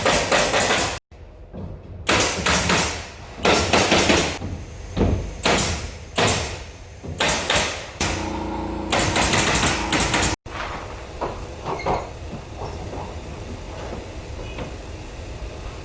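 Carpentry work noise: a series of short, loud noisy bursts about a second apart, broken off abruptly twice, then quieter knocks and clatter.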